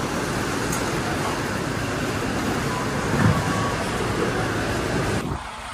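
Steady, even din of a distribution warehouse: roller conveyors and machinery running. It drops away sharply shortly before the end.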